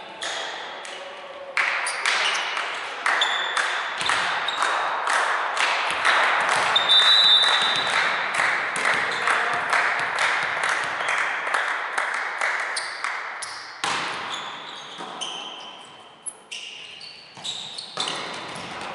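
Rhythmic clapping and cheering in a reverberant sports hall, two or three claps a second, dying away about fourteen seconds in. After that comes a volleyball rally: single ball hits and bounces, and shoe squeaks on the wooden court floor.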